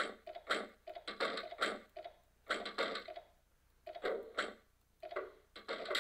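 Sound effects of a cartoon double door swinging open and shut, played from a web page: a quick string of short door sounds, a few a second.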